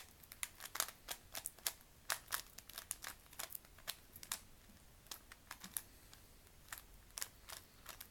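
Plastic Rubik's Cube being turned quickly by hand during the last-layer algorithms of a solve: runs of sharp clicks, several a second, as the layers snap round, with a short lull just past the middle.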